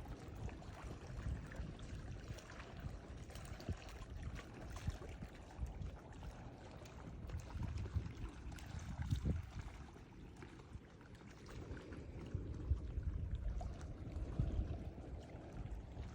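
Ocean water rushing and splashing, with a heavy, uneven low rumble that swells and eases over several seconds.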